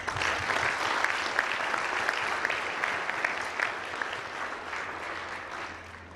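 Audience applauding, starting abruptly and slowly dying away over the last couple of seconds.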